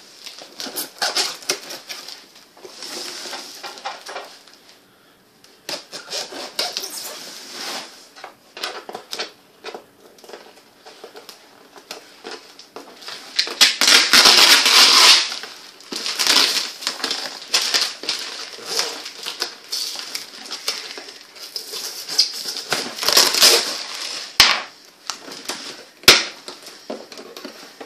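Packing tape being slit with a knife and ripped off a cardboard box, then the box flaps pulled open: irregular scraping, tearing and crinkling, with the loudest ripping about halfway through.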